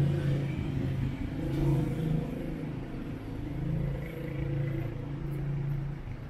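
Street traffic: car engines running and passing close by, a low hum that swells and fades several times over general city noise.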